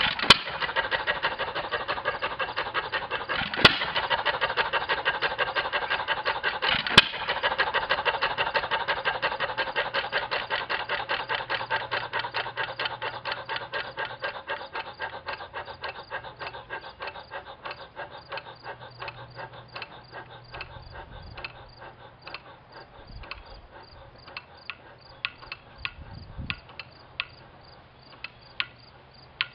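1922 Novo Model S 3 HP vertical single-cylinder hit-and-miss engine coasting down after being shut off: a rhythmic mechanical clicking once a turn that slows steadily from several a second to about one a second as the flywheels lose speed. Three sharp, louder clacks come in the first seven seconds.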